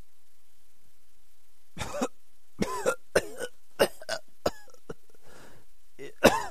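A hungover man coughing and clearing his throat in a string of short, rough bursts, starting about two seconds in, with a sharper, louder hack near the end.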